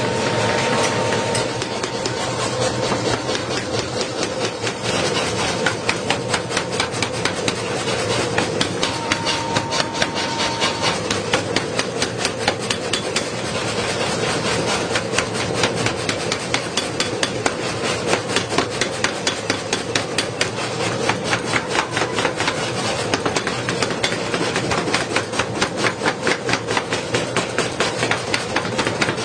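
Metal being forged: a hammer strikes the workpiece in rapid, even blows, about three a second, with a steady machine hum underneath.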